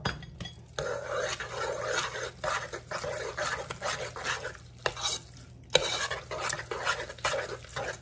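Cooked macaroni being stirred with a fork in a nonstick pot to mix in the milk, butter and cheese powder: continuous wet scraping, with the fork clicking against the pot now and then, loudest about six seconds in.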